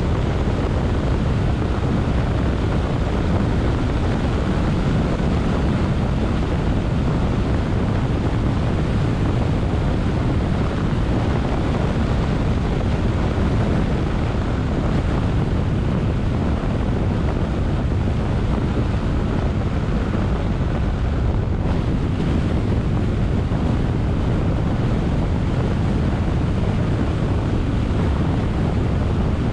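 Steady low rumble of a car driving at speed: tyre and road noise mixed with wind rushing over the microphone, unchanging throughout.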